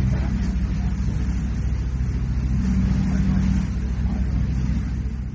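A boat engine running with a steady low rumble, fading out near the end.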